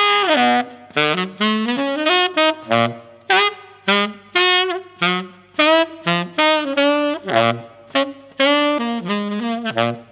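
Tenor saxophone playing a jazz line in short phrases of quick notes, opening with a downward slide in pitch.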